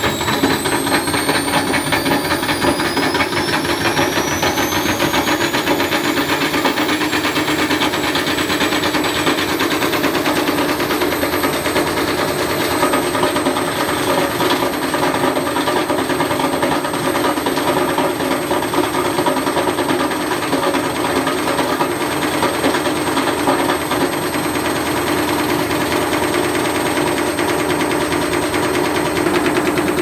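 Universal washing-machine motor belt-driving a tumble-dryer drum at high speed. Its high whine rises over the first few seconds as it speeds up, then holds steady over a continuous rapid rattle.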